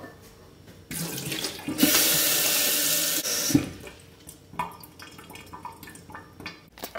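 Water running from a tap into a drinking glass. It starts about a second in, runs at full flow for about a second and a half, then stops suddenly, and a few light clinks and knocks follow.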